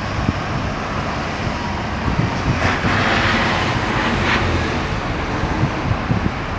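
Road traffic on a highway: a steady mix of engines and tyre noise, with one vehicle passing close by about three seconds in.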